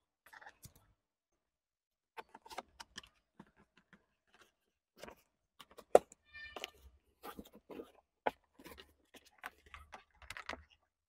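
Dash cam cable being pressed into a car's headliner edge and door seal with a plastic trim tool: irregular clicks, taps and scrapes. The loudest is a sharp click about six seconds in, followed by a brief squeak.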